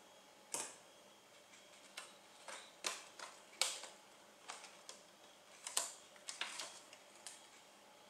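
Irregular sharp clicks and light snaps from the aluminium bottom cover of an Asus UX32VD laptop as it is prised loose by hand along its edges. About a dozen clicks, the loudest a little before the middle and again about three-quarters through.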